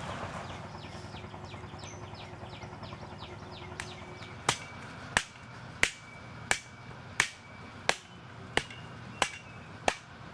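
A mattock striking hard-packed earth over and over, about nine sharp blows in a steady rhythm of roughly three every two seconds, starting about halfway in and stopping just before the end.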